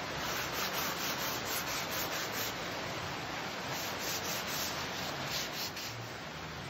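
Sandpaper rubbed by hand up and down a new wooden axe handle, in quick back-and-forth strokes that stop near the end with a small click.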